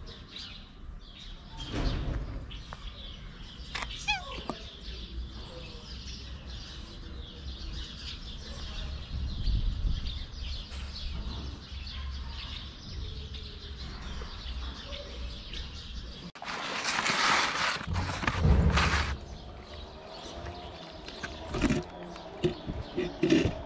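Small birds chirping in the background. About two-thirds of the way through, a louder burst of noise lasts a couple of seconds, followed by a few short clicks near the end.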